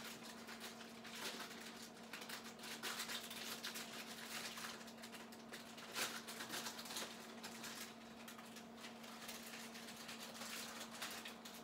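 Faint irregular clatter and rustling of kitchen items handled at a stove counter, small knocks and scrapes with one sharper knock about six seconds in, over a steady low hum.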